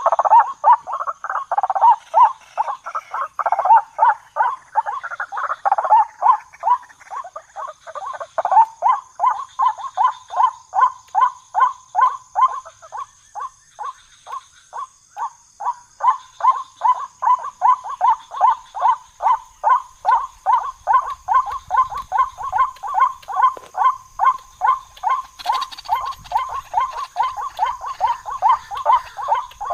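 White-breasted waterhen calling: a long unbroken run of short repeated notes, about three or four a second, fuller and louder in the first several seconds.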